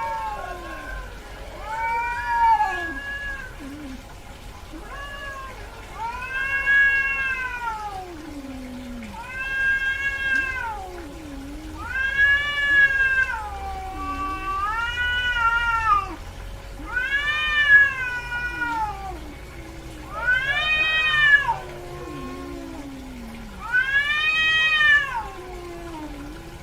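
Cat in heat yowling: a series of about eight long, drawn-out meows, each rising and then falling in pitch, repeated every few seconds.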